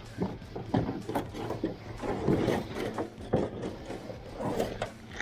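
A string of irregular knocks, bumps and rustling, like objects being handled and moved about, over a steady low hum.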